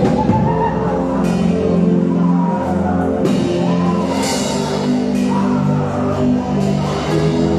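Loud live band music with drum kit, bass and keyboard chords and a steady beat.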